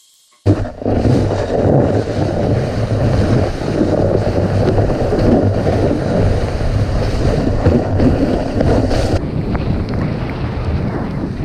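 Wind rushing over the microphone as a snowboard runs fast through deep powder: a loud, steady rushing rumble that starts suddenly under a second in and turns duller about nine seconds in.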